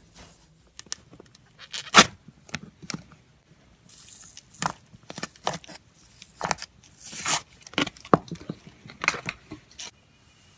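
Cloud slime being stretched and squeezed by hand, giving irregular crackling, tearing pops, the loudest about two seconds in.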